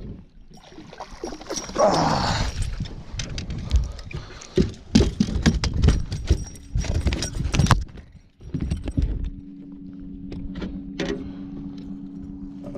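A fish splashing at the side of the boat as it is netted, then irregular knocks and clatter of the landing net, rod and fish on the boat's carpeted deck. From about nine seconds in, a steady low two-tone hum takes over.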